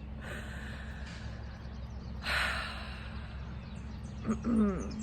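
A person breathing audibly: a breath in, then a louder breath out like a sigh. A brief low voiced sound follows near the end.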